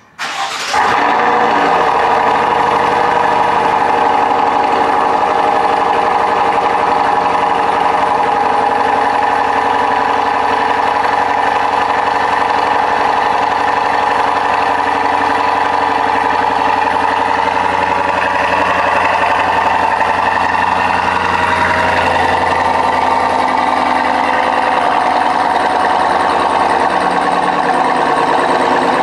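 Cold start of a 2022 Cadillac Escalade's 6.2-litre V8 through a Corsa Sport cat-back exhaust: a brief crank, then it catches within a second and runs at a steady, loud, high cold-start idle, sounding nasty. A little past twenty seconds in, the note settles slightly.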